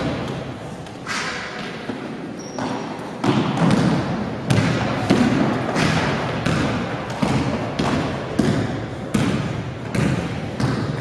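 A basketball being dribbled on a hardwood gym floor: a steady run of bounces about one and a half per second from about three seconds in, each ringing briefly in the hall.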